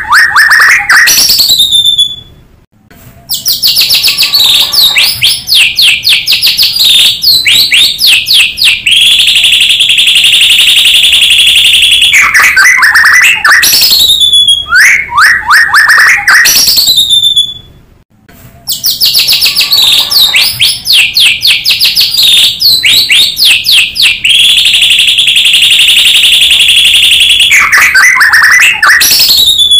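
White-rumped shama song played as a looped lure recording: loud down-sliding whistled phrases and fast runs of notes, then a long high trill, the whole sequence repeating about every 15 seconds with a short break about 3 seconds in and again near 18 seconds.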